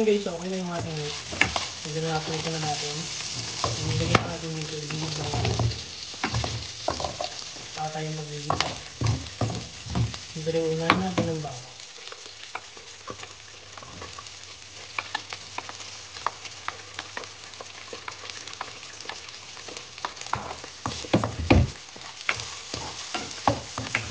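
Cubed pork sizzling in oil in a stainless steel frying pan, stirred with a spatula that clacks and scrapes against the pan; about halfway through, chopped tomatoes and onion are scraped in from another pan. A low voice sounds in the background during the first ten seconds or so.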